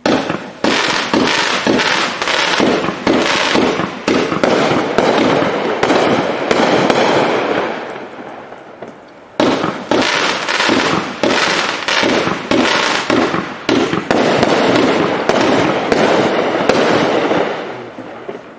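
A 500-gram fireworks cake firing rapid pops and crackling in two volleys of about eight seconds each. The first dies down into a short lull about nine seconds in, then the second starts abruptly and tails off near the end.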